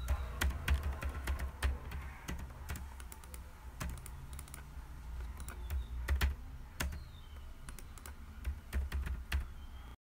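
Typing on a computer keyboard: irregular key clicks that come in quick runs near the start, again about six to seven seconds in and near the end, and more sparsely in between, over a low hum.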